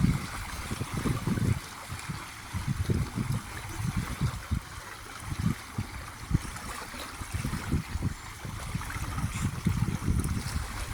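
Lake water lapping in small waves, with irregular low rumbling surges over a steady hiss.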